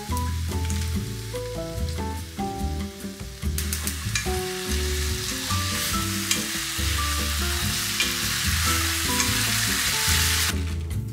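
Eggplant, mushrooms and bell pepper sizzling in oyster and soy sauce in a frying pan as the heat comes back on, stirred with wooden chopsticks. The sizzle grows louder from a few seconds in and cuts off suddenly near the end. Soft background music plays throughout.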